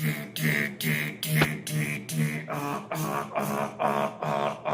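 Vocal beatboxing: a steady beat of roughly two to three hits a second, each hit a hummed low tone with a sharp hiss on top.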